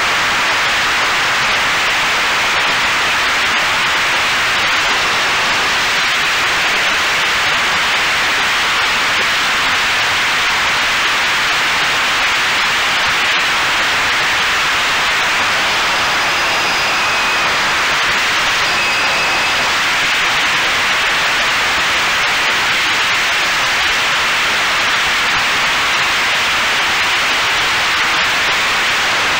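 Steady rushing hiss of airflow and propeller noise picked up by the onboard camera of a radio-controlled OV-10A Bronco model in flight, with a faint high whine coming and going.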